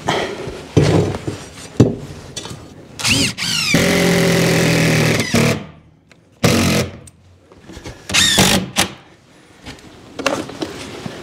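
Power drill running in several short bursts: it spins up about three seconds in and runs steadily for about two seconds, then fires twice more briefly, with a few knocks from handling the work.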